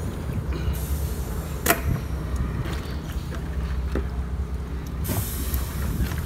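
A steady low rumble, with one sharp knock a little under two seconds in and a few fainter knocks later.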